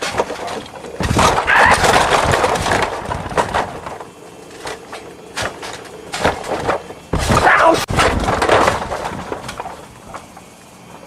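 Toys clattering and knocking together as they are shaken and tumbled to stage a pretend earthquake. There are two loud spells of dense rattling, about a second in and about seven seconds in, with scattered knocks between them.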